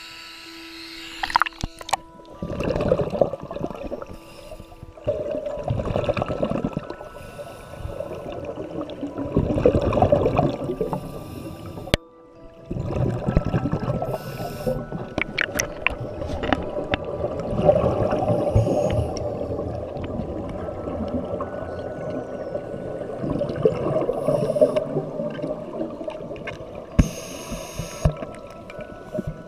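Scuba regulator breathing underwater: exhaled bubbles gurgle and rush in surges every few seconds, then almost without a break from about halfway, with sharp clicks. Soft background music with long held notes plays throughout.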